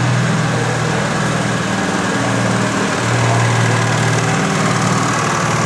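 Engine of a small classic Honda car running at low revs as it creeps forward at walking pace, a steady small-engine note.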